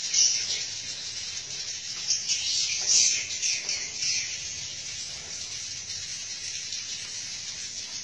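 Edible-nest swiftlets twittering in quick, high chirping bursts, loudest in the first half and thinning out after the middle.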